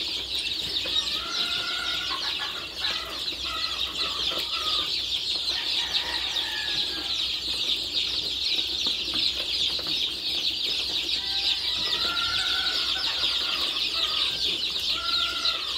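A brooder full of chicken chicks peeping continuously in a dense, high-pitched chorus, with a few separate lower calls here and there, more of them near the end.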